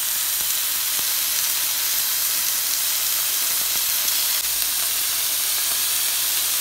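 Marinated lamb cubes on wooden skewers sizzling steadily on a hot ridged grill pan.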